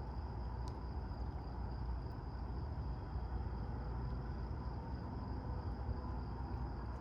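Steady night-time outdoor ambience: a constant low rumble with a thin, high, unbroken insect drone over it, and one faint click under a second in.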